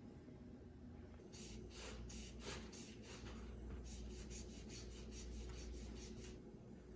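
Faint rubbing and tearing strokes of hands pulling Oaxaca cheese apart into strings, about three a second, starting about a second in and stopping near the end.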